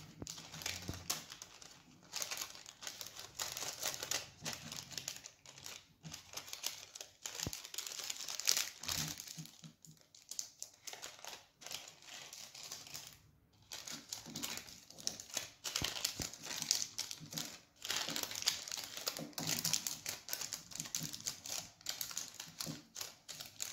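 Sheet of parchment paper crinkling and rustling in irregular fits and starts as hands fold and crease it around an upturned glass to shape a muffin liner, with a few short pauses.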